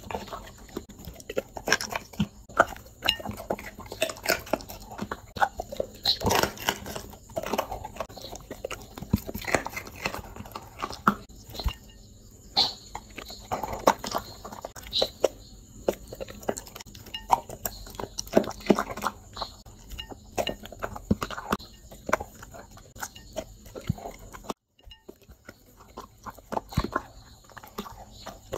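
Dog eating hand-fed food close to the microphone, with a steady run of irregular crunching bites, chewing and mouth sounds.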